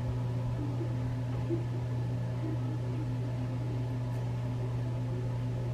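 Bathroom exhaust fan running with a steady low hum.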